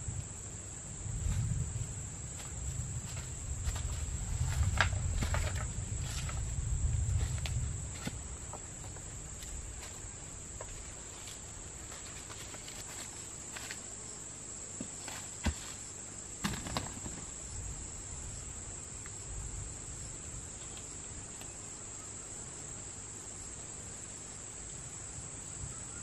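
Steady high-pitched insect chorus throughout. Over it, footsteps and rustling in dry leaf litter fill the first several seconds, and a few sharp snaps or clicks of twigs come later.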